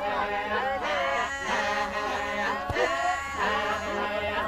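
Group of Maasai men chanting together: several voices rising and falling over a steady held note. A single sharp knock comes about two-thirds of the way through.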